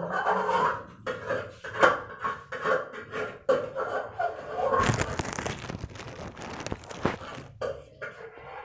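A person's voice, mixed with scattered knocks and rustling.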